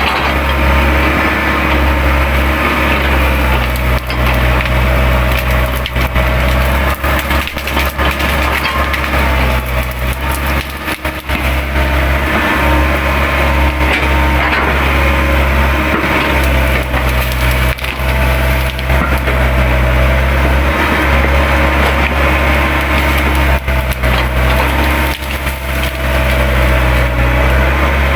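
Excavator running with a steady low engine drone while it tears through brush, with repeated sharp cracks and crunches of branches snapping and being crushed.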